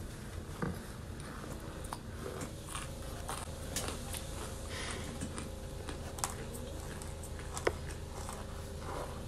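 Chewing and crunching of baked cornstarch with sharp crunchy clicks every second or two, and fingers pressing into loose cornstarch powder, over a steady low hum.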